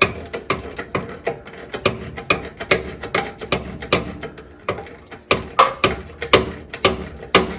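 Hand ratchet clicking in uneven strokes, about two to four clicks a second, as the steering box mounting bolts are worked loose.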